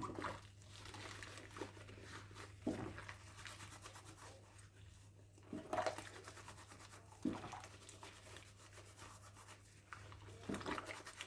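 Faint scrubbing of a plastic dishwasher filter part with a sponge in a sink of soapy water, with a few light knocks and splashes over a steady low hum.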